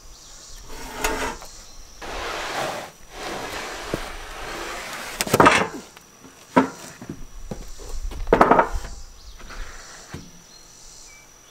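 Freshly sawn pine boards being handled on a sawmill's steel bed: a long scraping slide of wood over the frame, then several sharp wooden knocks, the loudest about five and a half and eight and a half seconds in.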